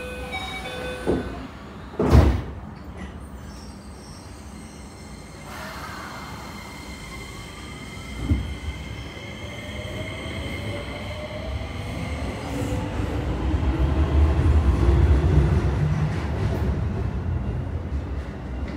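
Keio 8000 series commuter train heard from inside the car as it pulls away. A loud thump comes about two seconds in. From about five seconds the traction motors' whine climbs in pitch in several rising tones as the train accelerates, and the rumble of the wheels on the rails grows louder.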